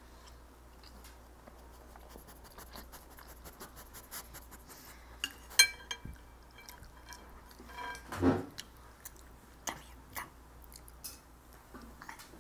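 Chopsticks and hands knocking against a large glass bowl: scattered light clicks and taps, with one sharp clink that rings briefly about five and a half seconds in. A louder, brief sound comes a little after eight seconds.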